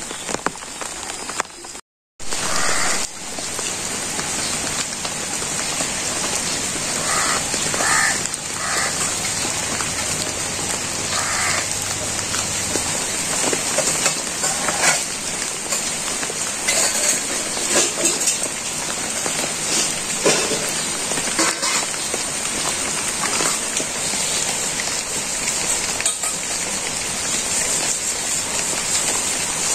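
Steady rain falling, an even hiss of drops on leaves and the ground.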